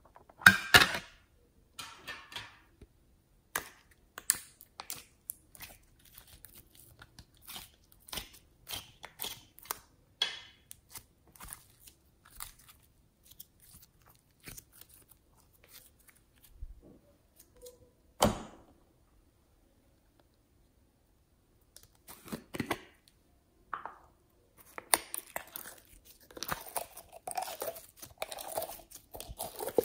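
Slime being squeezed, stretched and pulled by hand: scattered sticky crackles and small pops, with one loud crackle about half a second in. The crackling stops for a few seconds in the middle, then turns dense and continuous near the end as glittery slime is drawn out of a plastic jar.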